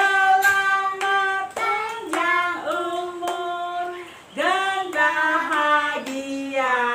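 A woman and children singing a birthday song together, clapping their hands along, with a short break between lines about four seconds in.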